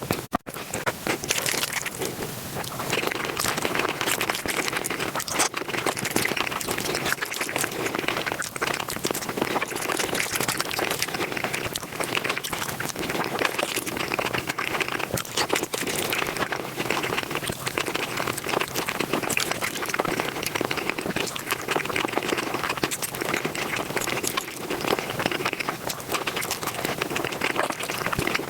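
Close-miked eating sounds, chewing, crunching and smacking, sped up to about five times normal speed so that they run together into a dense, continuous crackle. There is a brief cut in the sound just after the start.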